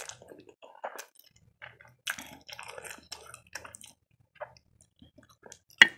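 A person slurping and chewing instant noodles, with irregular wet mouth smacks and a denser run of chewing sounds midway. A single sharp click near the end is the loudest sound.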